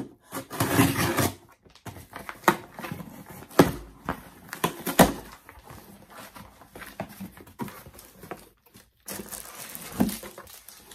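Cardboard box being opened by hand: scissors slitting the packing tape with a rough scraping noise, then several sharp knocks and scrapes of cardboard as the flaps are pulled open, and a rustle near the end as the packaged item is lifted out.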